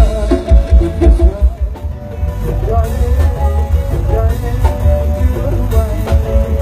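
Isan soeng-style music played loud through a Thai parade sound truck's speaker system during a sound check: a wavering melody over heavy bass beats, the bass pulses hardest in the first two seconds.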